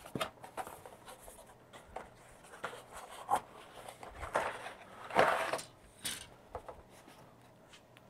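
Thin cardboard kit box being handled and opened, with plastic model sprues slid out of it: a string of short rustles and scrapes of card and plastic, the loudest about five seconds in, dying down near the end.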